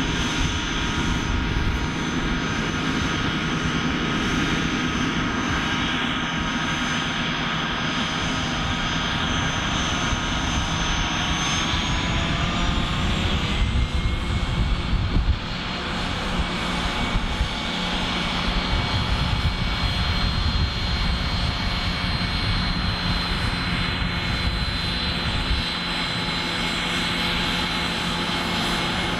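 Learjet 45's twin Honeywell TFE731 turbofan engines whining steadily at taxi power, with several high tones over a low rumble. The whine rises slightly in pitch about two-fifths of the way through, then holds.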